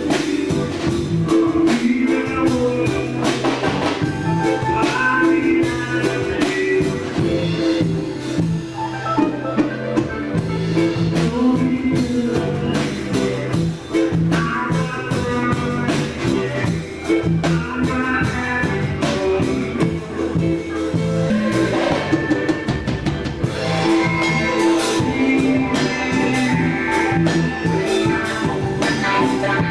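Band music with drum kit and guitar, and a voice singing at times.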